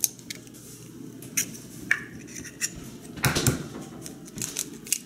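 Eggs being cracked and opened over a rice-cooker pot of warm rice. Scattered light clicks and taps, with a louder cluster of cracks a little past three seconds in.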